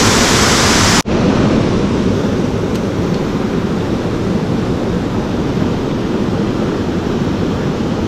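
Steady rushing of a small creek's flowing water. About a second in it breaks off for an instant and comes back duller.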